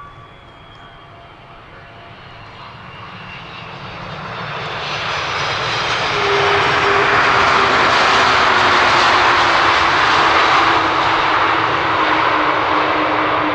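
Wide-body jet airliner on landing approach passing close. Its engine noise builds steadily over about six seconds to a loud broad rush, with a whine that slides slowly down in pitch as it goes by.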